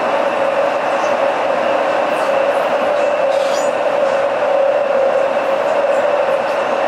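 Inside an old Shanghai Metro Line 1 train car (type 01A01) running on the line: a steady rumble and rush of the moving car with a constant mid-pitched hum over it and a fainter high whine.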